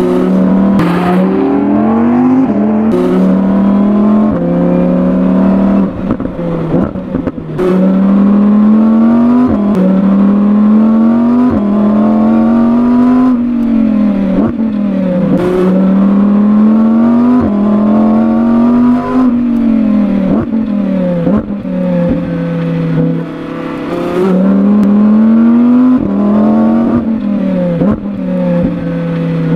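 Audi R8 V10 GT's 5.2-litre V10 under hard acceleration on a racetrack, the revs climbing steeply and dropping sharply at each upshift, over and over. It lifts off briefly a few times, and sharp cracks sound at some of the gear changes.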